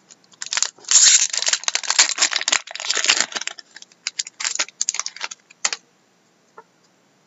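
Foil wrapper of an Upper Deck Artifacts hockey card pack being torn open and crinkled, dense and loud for the first few seconds, then a few lighter crackles and clicks as the cards are pulled out and handled.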